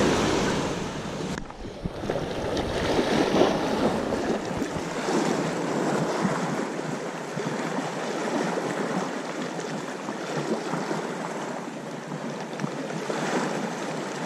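Sea waves washing onto the shore, a steady rushing hiss, with some wind on the microphone.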